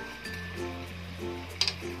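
Background music with a held low note, and a single sharp metal clink about one and a half seconds in: kitchen tongs knocking against the frying pan while turning the spring rolls.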